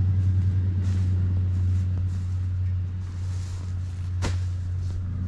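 A car driving on a road: a steady low engine and road rumble, with one sharp click about four seconds in.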